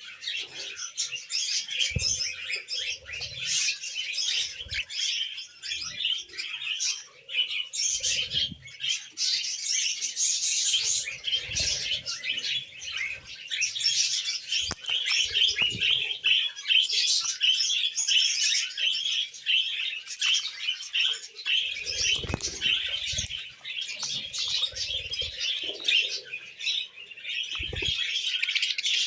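Budgies and cockatiels chirping and chattering without pause, a dense overlapping warble, with a few short low thumps here and there.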